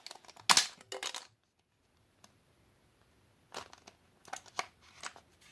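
Plastic clicks and knocks from a damaged flip phone being handled, with one sharp knock about half a second in and scattered light clicks and rattles later.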